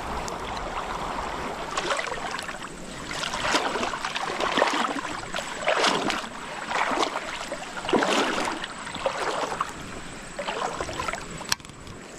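Creek water sloshing in repeated surges, about one a second, with a few faint clicks.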